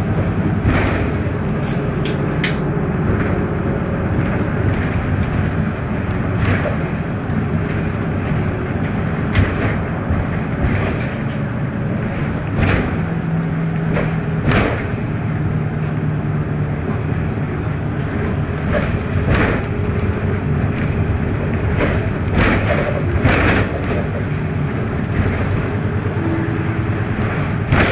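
Cabin sound of a VDL Citea 12 m city bus in service: the engine's drone and road noise run steadily. The engine note shifts a few times, and short rattles and clicks come and go.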